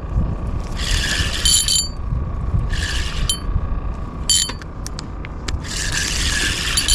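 A spinning reel being cranked in spurts, its gears whirring in short bursts about a second apart, with a few sharp clicks, as line is wound in against a hooked jack crevalle.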